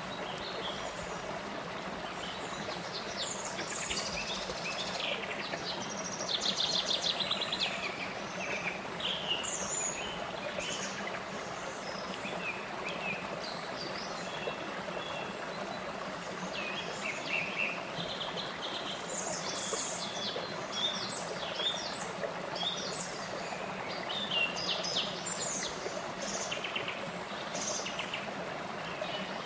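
Shallow stream rushing steadily over low rock ledges in small cascades, with many birds chirping and calling throughout; a few calls are rapid trills, the loudest about six to eight seconds in.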